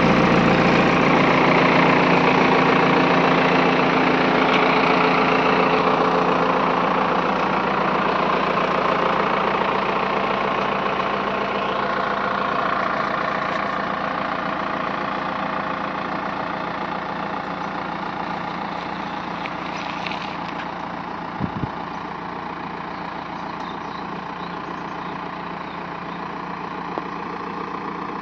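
Caterpillar 424B2 backhoe loader's diesel engine running steadily, loud at first and fading gradually. A couple of short knocks come in the last third.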